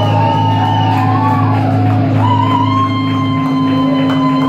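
Live rock band playing loudly, long held notes over a steady low drone, heard from inside the crowd in a club hall.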